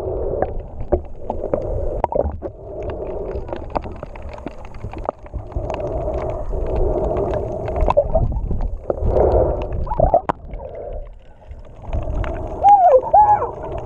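Muffled underwater sound picked up by a submerged action camera: water movement with scattered sharp clicks over a steady low hum. A brief wavering tone comes near the end.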